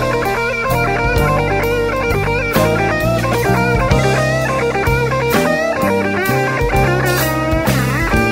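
Electric blues band playing an instrumental passage in a live recording: a lead electric guitar line with bent notes over bass and drum kit.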